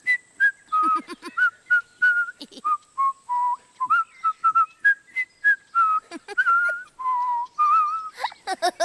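A person whistling a tune by mouth, in short stepping notes with brief gaps, some held a little longer, and a few gliding notes near the end.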